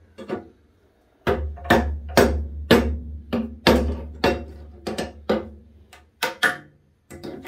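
Hammer blows on wooden wall framing: a run of sharp, ringing strikes about twice a second, uneven in strength, starting about a second in.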